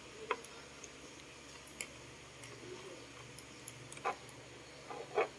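A few faint, light clicks and taps, about four in all with the last two the loudest, from a paintbrush and small plastic poster-paint jars being handled while the brush is dipped into the paint.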